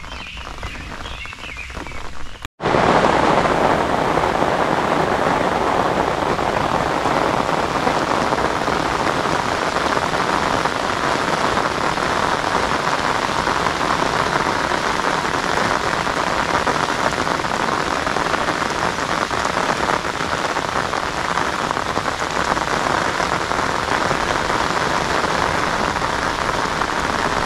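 Heavy rain falling on a river's surface: a steady, even hiss of countless drops. It drops out briefly about two and a half seconds in, then comes back louder and stays steady.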